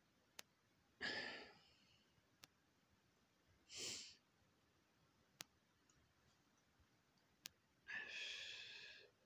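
A man sighing, breathing out three times a few seconds apart, the last one the longest. Faint sharp clicks come about every two seconds between the breaths.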